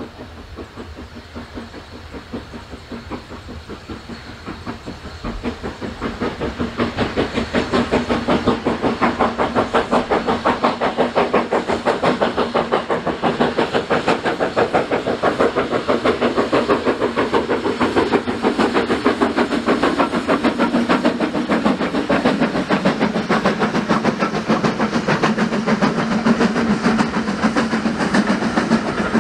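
BR Standard Class 9F 2-10-0 steam locomotive working hard past, its exhaust beating in a fast, even rhythm that grows much louder as it closes in. It is followed by its train of coaches rolling by.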